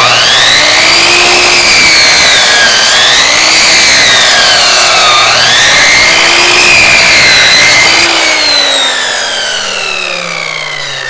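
Electric chop saw's motor whining under load as the blade cuts through a bone-in New York strip, its pitch sagging and recovering twice. About eight seconds in, the whine falls steadily and fades as the blade spins down.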